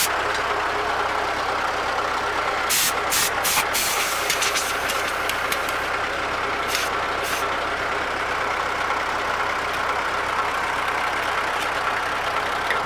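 An engine idling steadily under short bursts of compressed air from a blow gun being fired into a clogged radiator core. About three seconds in there are several quick blasts with lighter spurts after them, and two more blasts come a few seconds later.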